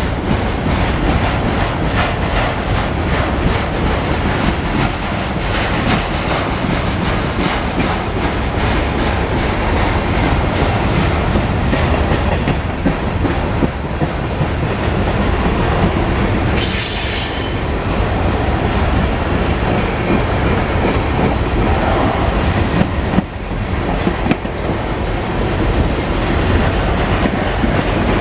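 Freight cars of a long mixed manifest train rolling past, wheels clattering steadily over the rail joints. A brief high screech of wheels on rail comes about two-thirds of the way through.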